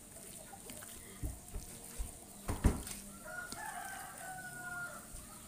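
A rooster crows once, a long call starting about three seconds in. Before it come a few dull knocks, the loudest about two and a half seconds in, as raw meat is worked by hand in a steel bowl.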